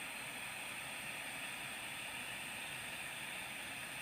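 Dremel Versatip 2000 butane soldering iron burning with a steady, faint hiss as it heats up.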